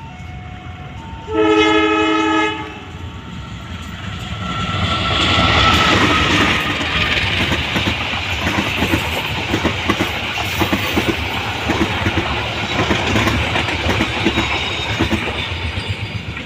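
Diesel locomotive horn sounds one loud blast about a second long. A train then passes close by, its rumble building and holding. The wheels make a steady clickety-clack over the rail joints as the wagons and coaches go by.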